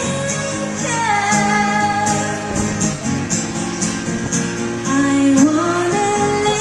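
Live band music: a woman's voice singing long, gliding held notes over guitar chords, with a steady high ticking beat.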